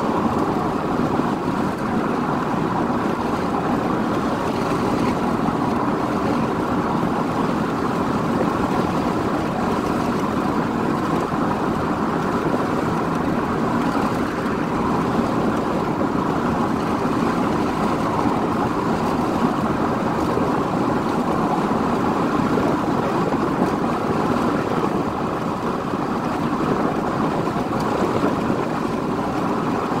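Steady rolling noise of a freight train of tank cars running on the track alongside, mixed with the road and wind noise of the moving car it is recorded from, heard from inside the car's cabin.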